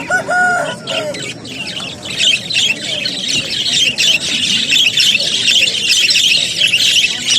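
Many small parrots chattering and squawking together, a dense high chatter that builds up about two seconds in and stays steady; at the very start a short pitched call.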